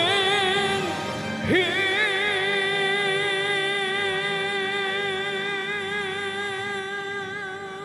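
A singer ends a gospel hymn on a long held note with vibrato, over soft accompaniment. The note starts with an upward slide about one and a half seconds in, and the sound fades away near the end.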